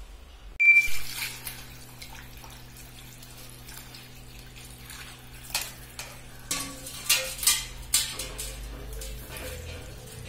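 Hands washing small cut pieces of pork in water in a steel bowl: water sloshing, with scattered clinks against the bowl, most of them in the second half. A sharp metallic clink about half a second in.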